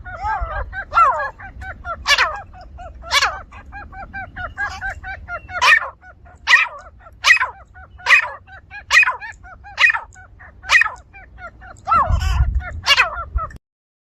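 Grey francolin calling: a loud, harsh note repeated roughly every three-quarters of a second, with quick lower chirping notes running between them. A low rumble swells near the end, and the calls cut off abruptly.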